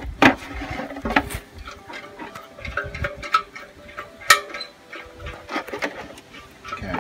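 Irregular clunks, taps and clicks of a small steel fuel tank being handled and tipped over a plastic tray to drain flushing kerosene.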